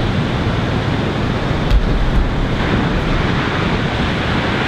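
Pacific Ocean surf breaking, a steady wash of waves, with wind buffeting the microphone in low thumps about two seconds in.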